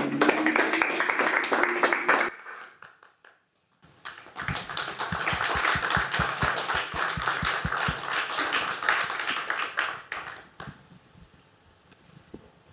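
Audience applause: a burst of sound cut off abruptly about two seconds in, a short silence, then about six seconds of dense clapping that dies away near the end.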